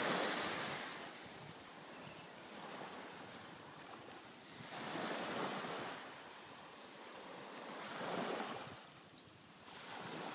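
Ocean surf breaking on the shore, swelling and fading three times as successive waves come in.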